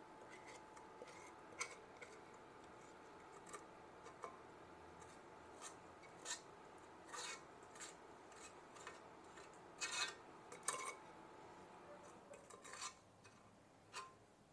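Faint, scattered scrapes and clicks of a metal spoon against a stainless-steel pot as thick toffee is scraped out of it, the loudest few about ten seconds in.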